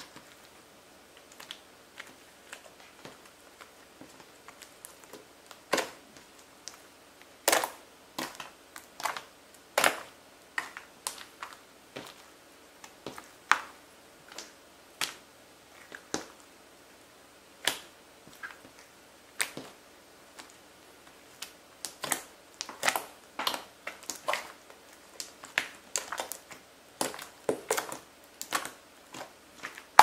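Glossy red slime being stretched, folded and pressed by hand, giving irregular sharp clicks and pops, sparse and faint at first, then frequent and louder.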